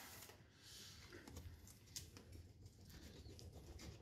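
Near silence, with faint rustling and a few small ticks of plastic packaging being handled.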